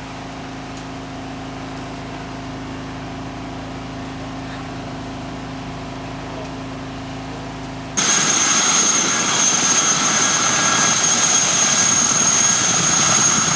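Steady engine hum holding one pitch. About eight seconds in it cuts abruptly to a louder, brighter machine noise with a high steady whine.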